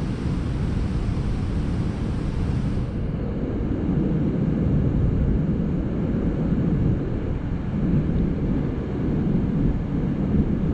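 Steady low rumbling noise of wind buffeting the microphone, over water rushing through a spillway.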